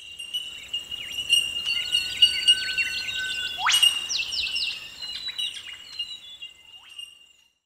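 Birds chirping and calling over a steady high insect drone, with one quick rising sweep about halfway through. The sound fades out near the end.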